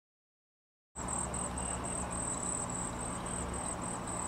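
Cricket chirping in a steady, rapid pulse of about four chirps a second over a low background hum, starting about a second in after silence.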